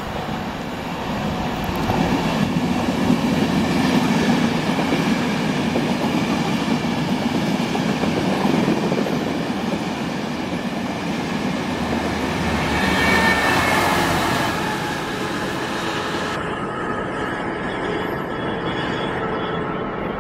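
Diesel-hauled passenger train passing close by: a steady rumble of coach wheels rolling over the rails, swelling a couple of seconds in and again around thirteen seconds in. About sixteen seconds in the sound changes abruptly to a duller train rumble.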